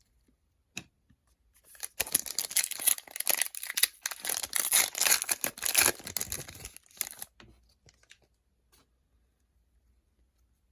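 Foil wrapper of a trading-card pack being torn open and crinkled, for about five seconds starting two seconds in.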